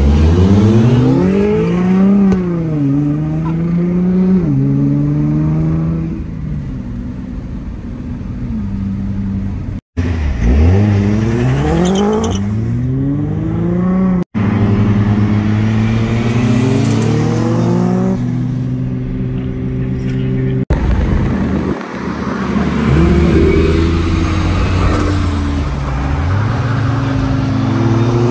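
Turbocharged NB Mazda Miata four-cylinder at wide-open throttle, heard from a car alongside: the engine note climbs hard and drops back at each gear change, over and over. The sound breaks off abruptly three times between pulls.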